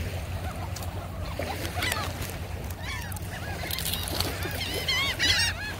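A flock of gulls calling as they gather at food thrown on the beach: a few scattered short, arching cries at first, thickening into a busy chorus near the end, over a steady low rumble of wind and surf.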